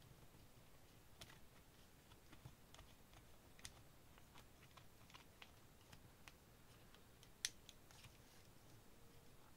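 Faint scattered clicks and taps of batteries and a plastic battery carrier being handled and fitted into place, with one sharper click about seven and a half seconds in.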